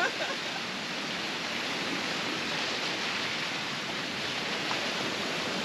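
Steady, even rushing of surf and wind along the shore.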